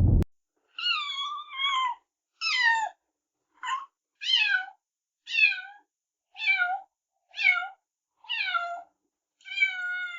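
Cat meowing repeatedly, about ten high meows roughly one a second, each falling in pitch, the last one drawn out longer.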